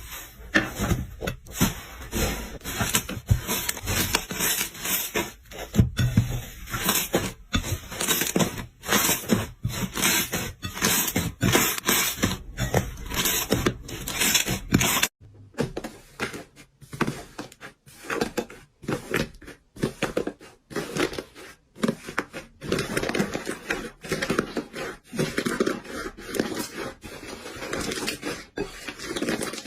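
Slime being squeezed, poked and stretched by hand, making rapid wet crackling and popping squelches. About halfway through the sound changes abruptly to softer, lower squishing.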